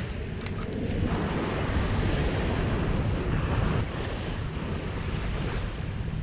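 Ocean surf washing on a beach, with wind buffeting the microphone; the rush swells about a second in and eases a little near four seconds.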